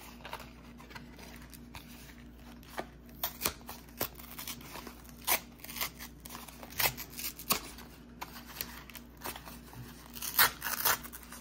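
A small knife cutting through a tie on a package, heard as scattered sharp clicks and scrapes with some rustling of packaging; the sharpest clicks come near the end. A faint steady hum runs underneath.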